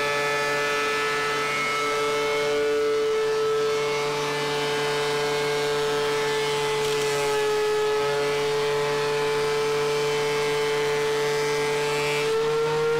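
DeWalt DW735 thickness planer running with a steady high whine as a 2x4 is fed through it. While the board is being cut, the pitch dips slightly under load and a rough hiss rises over it. The whine climbs back up near the end.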